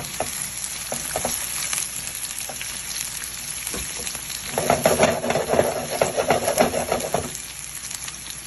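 Chopped garlic, carrots and bell peppers sautéing in hot oil, with a steady sizzle and the clicks of a spoon stirring in the pan. The stirring gets louder and busier for a few seconds past the middle.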